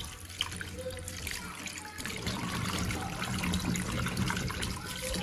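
Water running from a tap into a sink, with irregular small splashes as it falls.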